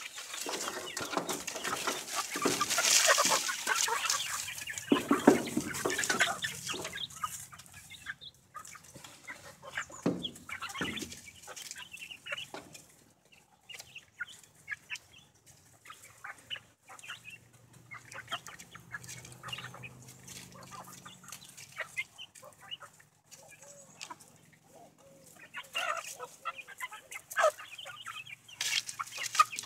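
A flock of chickens clucking close by, with a loud rustling stretch in the first few seconds and short scattered calls after it.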